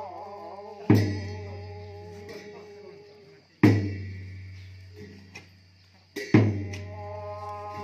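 Tibetan opera accompaniment: a large drum and cymbals struck together three times, about two and a half seconds apart. Each stroke leaves a low drum boom and cymbal ringing that fade away. A sung line trails off about half a second in.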